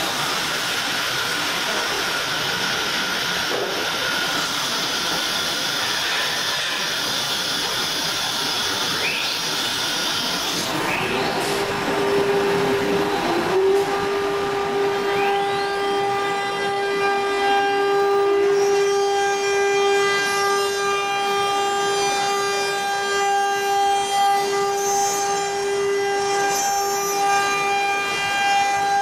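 ATC CNC router working, first with a steady hiss. About twelve seconds in, its spindle spins up with a rising whine, then holds a steady high-pitched whine at speed.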